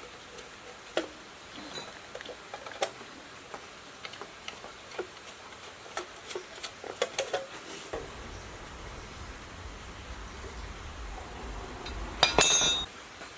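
Scattered light metallic clinks and taps, with a louder ringing metallic clatter near the end.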